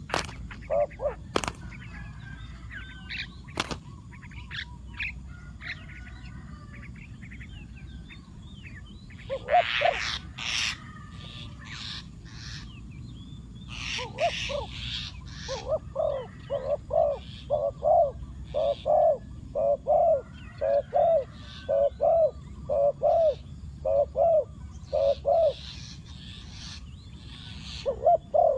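Spotted dove cooing: a long series of low, evenly spaced coos about two a second, starting about a third of the way in, with a pause near the end. Small birds chirp higher above it, and there are a few sharp clicks at the start.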